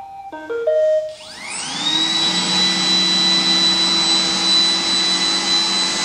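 iRobot Roomba robot vacuum starting to clean: a few short electronic tones, then about a second in its vacuum motor spins up with a rising whine and settles into a steady run.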